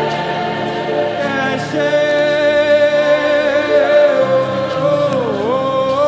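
Gospel worship music: voices hold long notes with no words over a sustained accompaniment, and one voice slides down and back up near the end.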